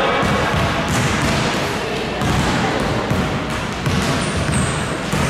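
Basketball bouncing on a gym court, repeated dribble impacts over a steady din of the game, with a few brief high squeaks about four seconds in.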